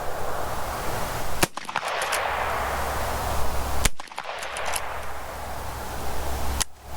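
Marlin 1894 CSBL lever-action rifle firing .38 Special: two shots about two and a half seconds apart, each followed by a brief run of sharp clicks.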